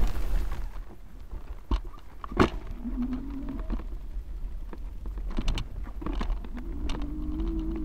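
European bison giving two low, drawn-out calls, a short one and then a longer, slightly rising one, over a low rumble with a couple of sharp knocks early on.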